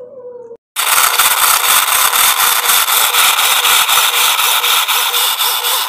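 Electric food processor running on its Food Chop/Salsa setting, its blade chopping chunks of fresh coconut into grated coconut. The motor starts abruptly about a second in and then runs loud and steady.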